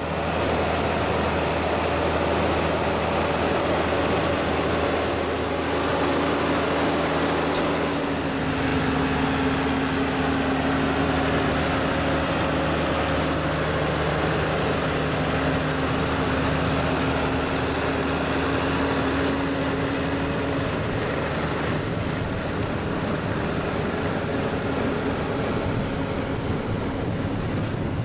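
Tractor engine running steadily under load while pulling a Dewulf RA2060 trailed potato harvester, with the harvester's machinery working alongside. The sound shifts at cuts about 8 and 21 seconds in.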